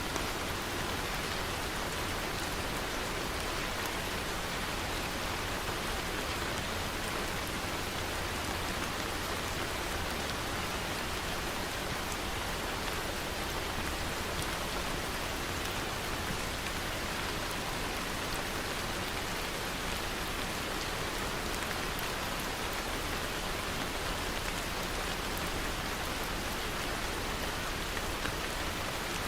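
Steady rain falling on a surface: an even, continuous hiss of many small drops pattering, with no breaks.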